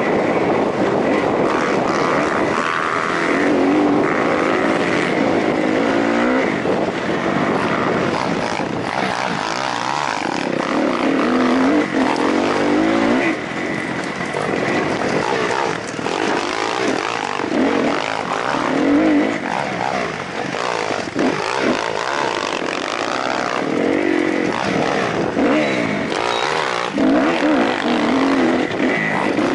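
Off-road motorcycle engine heard from on the bike, revving up and dropping back again and again as it is ridden over rough dirt.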